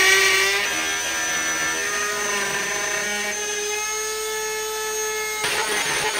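Ryobi trim router cutting, its motor whining steadily with slight shifts in pitch as the load changes. Near the end the sound turns suddenly rougher and noisier.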